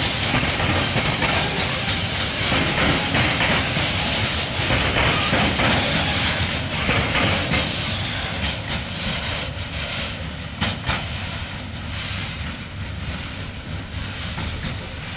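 Loaded coal hopper wagons rolling past, a steady rumble with the clatter of wheels on the rails. The sound fades gradually over the second half as the end of the train moves away.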